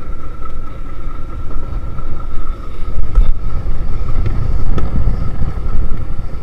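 A trawler's engine running with a low rumble and a steady high whine, while wind buffets the microphone in gusts. A couple of brief knocks come about three and five seconds in.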